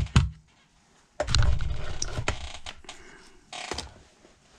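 Equipment and cables being handled on a workbench: a series of sharp clicks and knocks, with a stretch of low rumbling handling noise about a second in.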